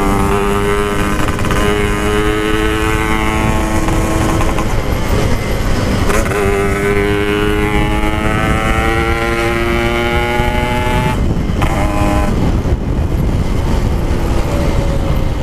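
Yamaha RX King's single-cylinder two-stroke engine, with an aftermarket exhaust, pulling hard under acceleration. Its pitch climbs steadily through one gear, breaks for a shift about five seconds in, and climbs again through the next gear. About eleven seconds in the throttle closes and the engine note falls away.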